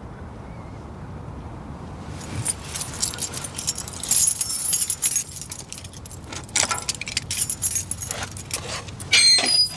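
Light metallic jingling and clinking in quick, irregular bursts over a low, steady rumble; the jingling starts a couple of seconds in.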